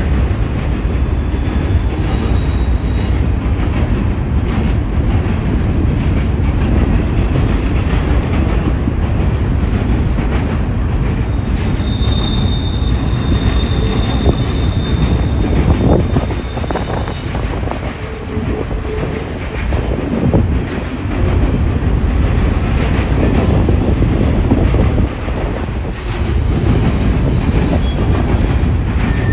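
Double-stack intermodal freight cars rolling past, a steady heavy rumble of steel wheels on rail. A thin high wheel squeal sounds at the start and again for several seconds about twelve seconds in.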